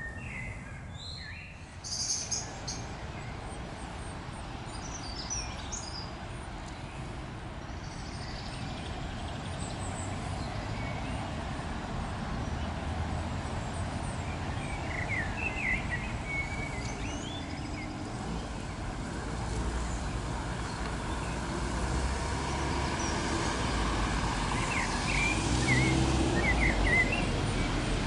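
Steady low rumble of distant road traffic that grows louder toward the end, with a few short bird chirps now and then: once near the start, once about halfway, and a cluster near the end.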